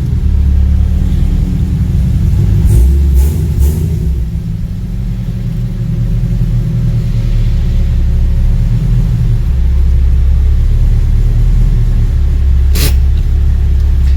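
Chevrolet Camaro SS's V8 idling with a steady low exhaust rumble. A few light clicks sound around three seconds in and one sharp click near the end.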